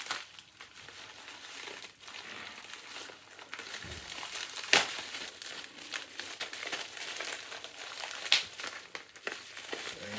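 Packaging crinkling and rustling as it is opened and a VHS tape is worked out of it. Two sharp cracks stand out, about five and eight seconds in.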